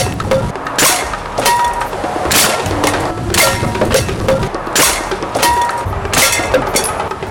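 Background music with a steady, sharp percussive beat.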